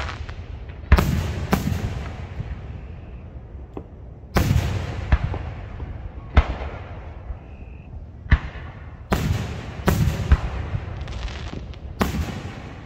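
Aerial fireworks shells bursting: about a dozen sharp booms, irregularly spaced about a second apart, each trailing off in a rumbling echo.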